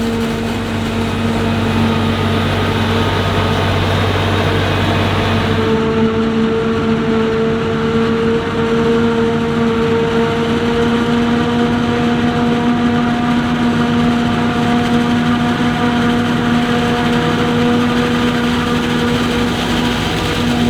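Forage harvesting machinery running steadily while chopping maize: an engine drone with a strong held whine. About six seconds in, the deep rumble drops away and the whine rises slightly.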